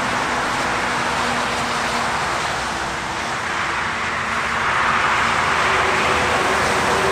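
Highway traffic: a steady rush of tyre and engine noise from passing cars. It dips slightly about three seconds in, then swells again as more vehicles pass.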